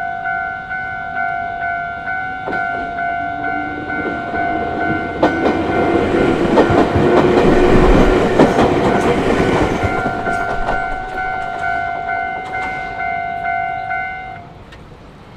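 Japanese level-crossing warning bell ringing in a steady repeating kan-kan while a train passes. The train rises to its loudest about eight seconds in, with wheels clattering over the rails, then fades. The bell stops shortly before the end, as the crossing clears.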